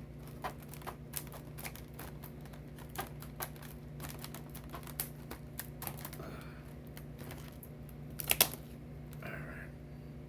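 Wiss tin snips cutting through hard plastic clamshell packaging: a run of irregular sharp snips and clicks, with a louder double snap about eight seconds in.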